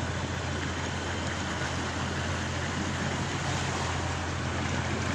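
Small open motorboat's engine running steadily with a constant low hum, over the wash of water along the hull.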